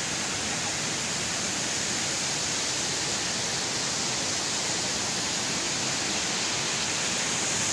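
Steady rushing of falling water from the stepped cascade fountains below the Palau Nacional.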